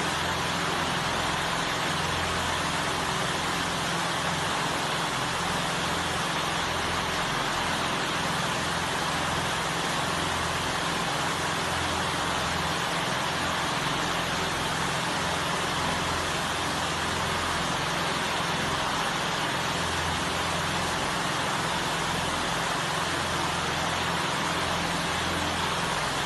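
Steady, even background noise with a low hum that swells and fades irregularly underneath.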